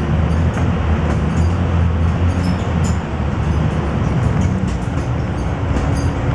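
Dennis Dragon double-decker bus running with a steady low engine drone as it pulls away, heard from inside the upper deck, with light scattered rattles.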